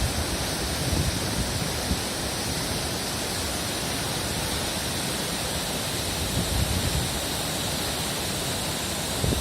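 Jang waterfall's falling water making a steady, even rushing noise, with a few low rumbles of wind on the microphone.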